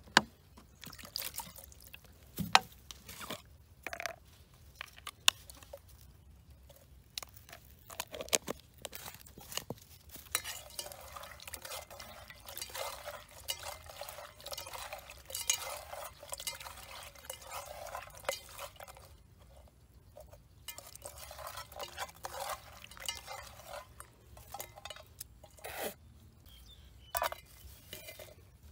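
Small fish being cleaned by hand in a wet enamel basin: wet squelching and scraping of fingers on the fish. Sharp knocks and clinks on the metal basin come in the first few seconds as the fish are tipped in.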